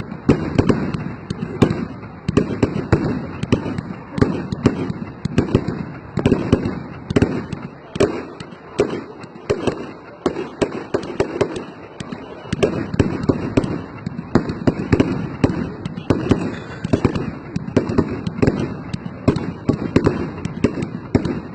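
Firework display: a continuous barrage of bangs and crackling pops from aerial fireworks, many a second.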